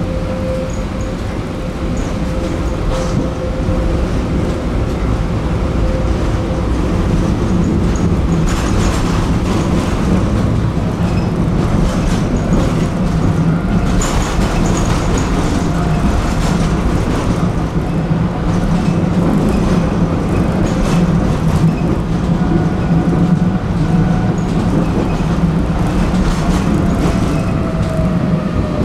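Tram running along its track: a steady low rumble of wheels on rail with scattered clicks and knocks from the rails, and a faint whine that falls in pitch near the end.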